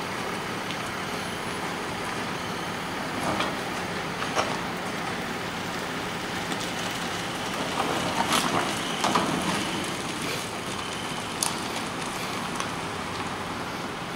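Steady city street noise with a police SUV driving past about eight seconds in, the loudest stretch, and a few scattered short knocks.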